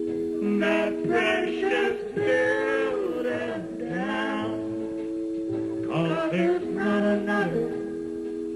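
A man singing into a microphone over steady held backing chords; the voice stops near the end while the chords carry on.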